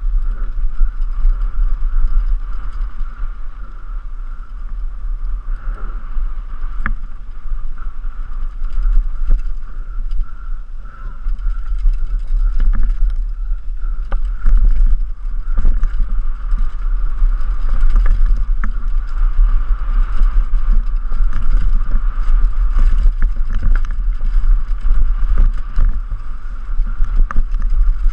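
Wind buffeting the microphone of a helmet-mounted camera during a fast downhill mountain bike descent, a loud, steady rumble, with scattered sharp knocks and rattles from the bike going over rough ground.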